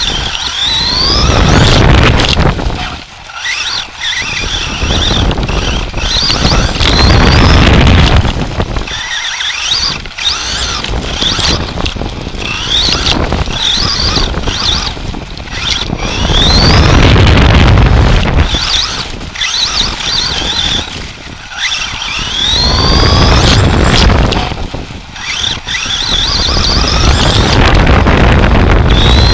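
Drivetrain of an Associated SC10 RC short-course truck, recorded from a camera mounted on the chassis: the motor and gears whine, rising in pitch again and again as the truck accelerates. Heavy rumble from the wheels and wind swells and fades every few seconds.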